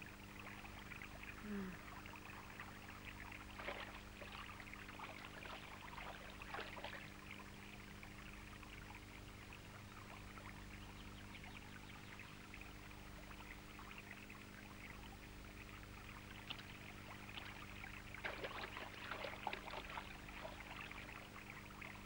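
Faint trickling and splashing of stream water, with a steady low hum underneath; the splashing grows busier near the end.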